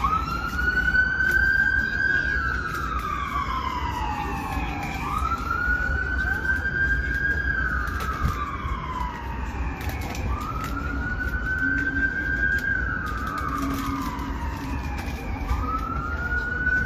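Emergency siren sounding a slow wail: each cycle rises quickly and then falls slowly, about every five seconds, four times in all, over a steady low rumble.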